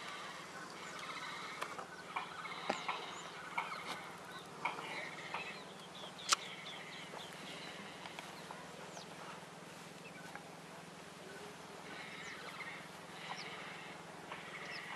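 Painted stork chick breathing heavily: a rapid, raspy panting that comes in bouts, fading in the middle and returning near the end. Sharp clicks and a few short high chirps break in, the loudest click about six seconds in.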